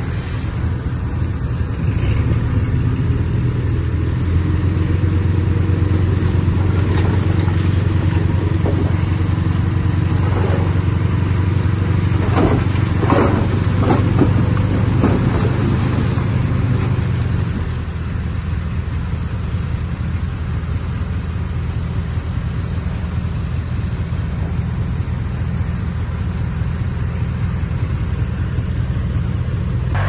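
Diesel engine of earthmoving machinery running steadily. It eases off a little after about 18 seconds. There are a few seconds of metallic squeals and clanks around the middle.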